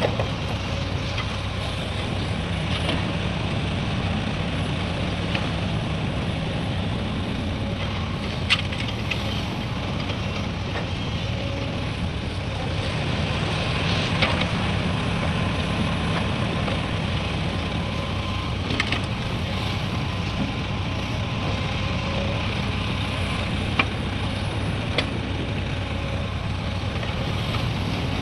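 Heavy diesel engine of an excavator or dump truck running steadily, with a few sharp knocks scattered through it.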